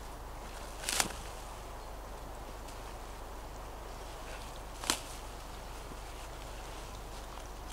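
Fern stems snapping as fronds are picked by hand: two sharp snaps, about a second in and again near five seconds in.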